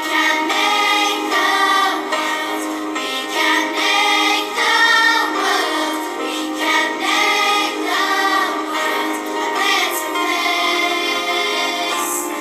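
Primary-school children's choir singing, in phrases of a second or so.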